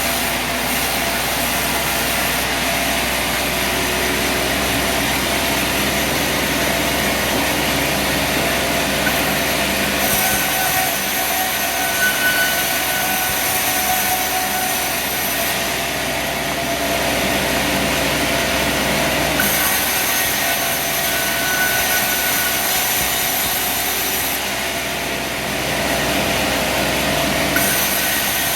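Sawmill running steadily: an engine-driven drone with a hiss that grows and fades several times.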